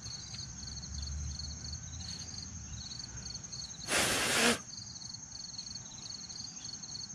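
Crickets chirping in a steady high pulsing trill, with one short, loud hiss lasting about half a second around four seconds in.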